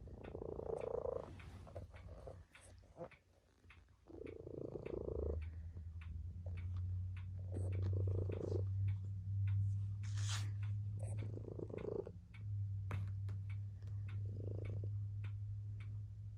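Tabby cat purring: a steady low rumble that swells every few seconds with its breathing.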